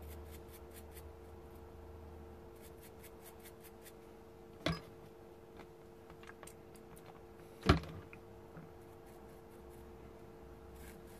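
Small tools and parts being handled at a workbench: faint scratchy ticks and light clicks, with two sharp knocks about three seconds apart near the middle, over a steady faint hum.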